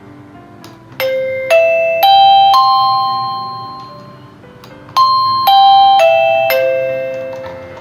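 Wireless doorbell receiver playing its chime: four ringing electronic bell notes rising in pitch, then after a short gap four notes falling back down. Each note rings on and fades. The doorbell is being played at one of its four volume levels.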